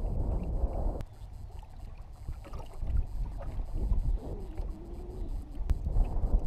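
Wind noise on the microphone, a steady low rumble, over water lapping against the hull of an aluminum fishing boat on choppy water.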